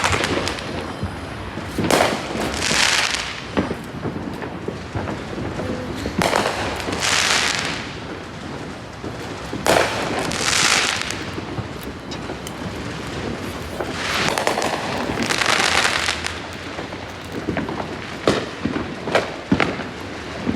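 Fireworks going off: a sharp bang every few seconds, mixed with hissing bursts that each last about a second.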